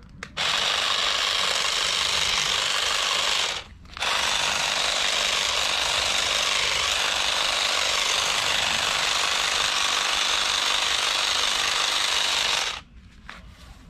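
Handheld power tool running steadily at full speed in two runs: about three seconds, a brief stop, then about nine seconds before it cuts off near the end.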